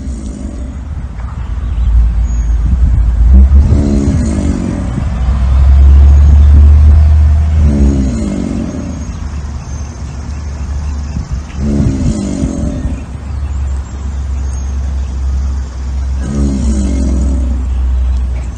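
American alligator bellowing: four deep, rumbling calls about four seconds apart, each lasting about a second, over a steady deep rumble. The alligator holds its head up and tail arched in the water, the posture of a bellowing bull.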